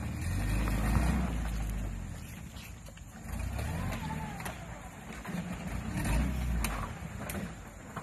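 Suzuki Samurai's four-cylinder engine revving in three bursts as it strains to climb a rock ledge, with a few sharp clicks near the end.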